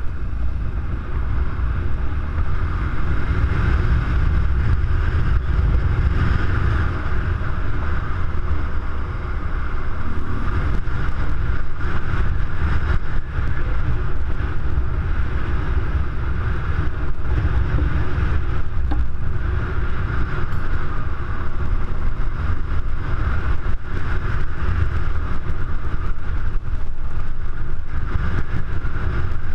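BMW R1200GS Adventure's boxer-twin engine running steadily as the bike rides along a gravel track, with wind rushing over the microphone.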